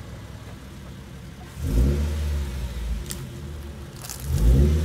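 Lowered Infiniti coupe's V6 engine running at low speed and revving briefly twice as the car creeps away from the curb, with a short sharp noise between the two revs.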